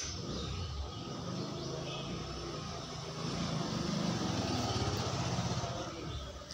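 A low, finely pulsing engine-like rumble that starts abruptly, grows louder about three seconds in, and fades away near the end.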